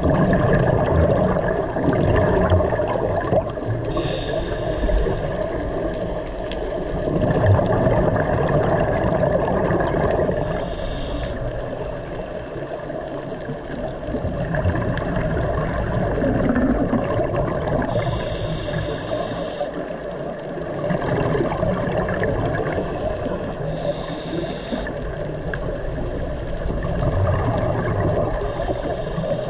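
Scuba diver's breathing heard underwater: the regulator hisses and exhaled bubbles gurgle in bursts every few seconds over a steady watery rush.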